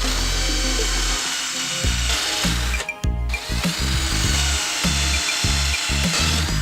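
A power tool running with a steady high whine that drifts in pitch a little, over background music.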